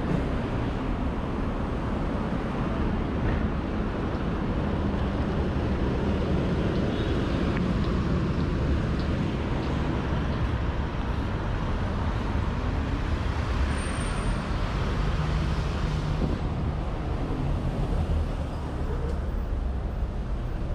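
Road traffic passing close by: a steady rumble of engines and tyres from cars and trucks, including a dump truck and a box truck driving past.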